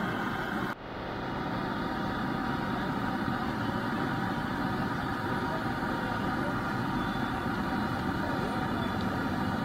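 Steady rushing noise of a street-side frying stall, with no clear single event. It drops out briefly about a second in.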